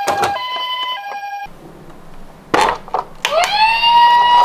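Two-tone Japanese ambulance siren alternating high and low, cutting off about a third of the way in. Two sharp clicks follow, then a wailing siren winds up from low to a steady high tone near the end.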